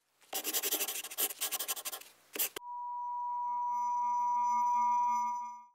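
Logo sound effects: about two seconds of rapid, scratchy rubbing, then a steady high tone that swells slowly and fades out near the end.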